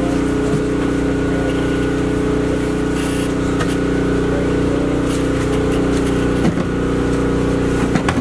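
An engine running steadily at a constant speed, an even hum that does not change, with a few brief knocks about six and a half and eight seconds in.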